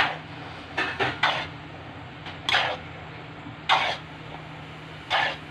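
Metal spatula scraping against a wok as stir-fried rice noodles (pancit bihon) are tossed: six short scraping strokes, irregularly spaced about a second apart, over a steady low hum.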